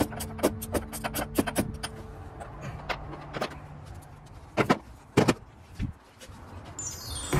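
Ratchet wrench clicking in quick, uneven runs as a bolt in the engine bay is worked, followed by two louder knocks about a second and a half in from the middle.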